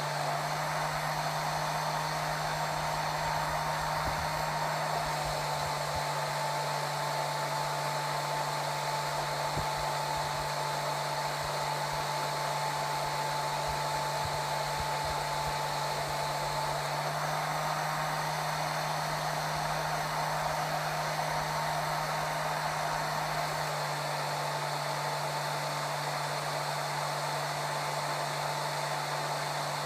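Hair dryer running steadily, a continuous blowing whoosh with a steady motor hum and a faint whine.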